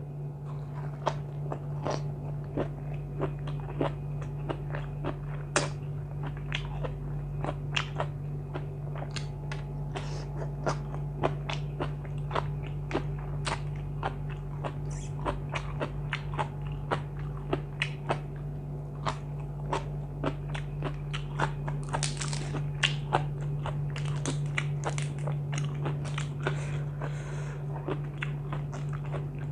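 Close-miked chewing and crunching of spicy seafood salad and raw vegetables, with frequent sharp, irregular crunches, over a steady low hum.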